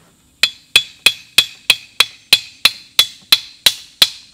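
A trotline stake being driven into the riverbank with a dozen steady hammer blows, about three a second, starting about half a second in.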